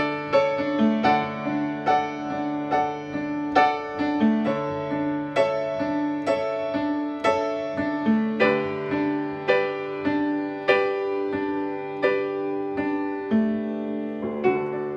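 Upright piano played solo: a melody of struck notes, about two a second, over held bass notes, with a fresh chord struck near the end.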